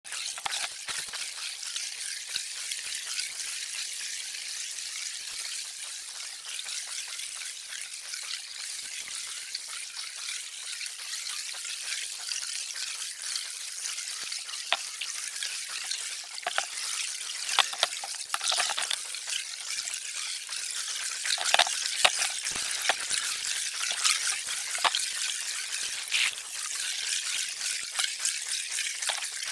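Underwater sound picked up through an action camera's waterproof housing: a steady, thin crackling hiss of the sea. From about sixteen seconds in come louder pops and crackles as scuba divers work close by, their exhaled bubbles rising past the camera.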